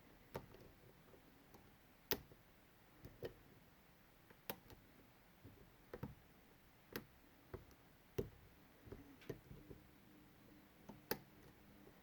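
Light, irregular metallic clicks and ticks of picking tools working the pins of a Medeco Biaxial 51S lock cylinder, about a dozen spread out, the sharpest about two and eight seconds in.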